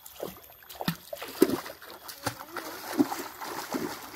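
Shallow stream water splashing as a stick slaps the surface and children wade through it: several sharp, irregular splashes.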